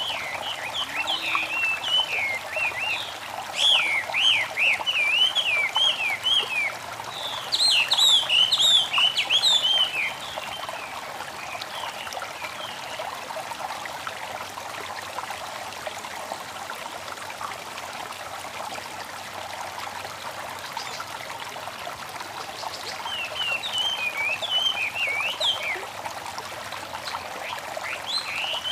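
Babbling stream trickling steadily, with songbirds singing in runs of quick rising and falling chirps during the first ten seconds and again near the end.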